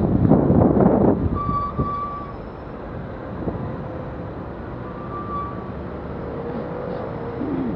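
Wind buffeting the microphone for about the first second, then the steady low noise of slow-moving city traffic. A few short high beeps come through, and a brief falling whine sounds near the end.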